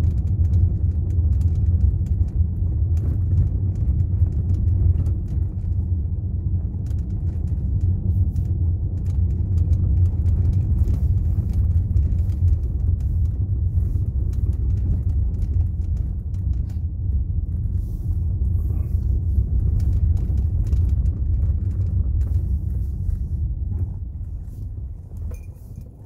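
Low, steady rumble of a taxi driving down a rough, narrow mountain road, heard from inside the cabin: tyres and suspension jolting over the uneven surface. The rumble dies down near the end.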